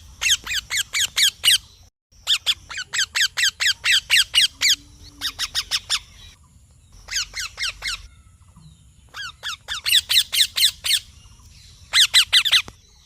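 Young Indian ringneck parrot calling in rapid runs of short, high chirps, several a second, in bouts broken by short pauses.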